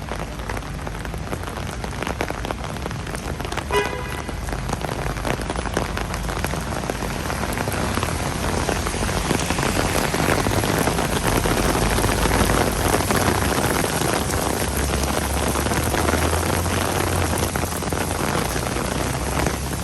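Steady rain falling, with a short high tone about four seconds in and a low rumble later on.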